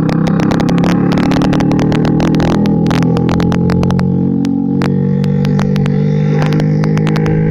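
Hero Splendor's single-cylinder four-stroke engine running loud through an open Akrapovic exhaust with its dB killer removed, while the bike is ridden. The engine pitch eases off about halfway through and then holds steady, with many sharp crackles throughout.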